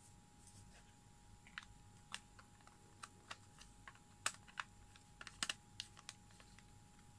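Light plastic clicks and taps, about a dozen scattered over a few seconds, from a 3D-printed plastic case being closed and handled.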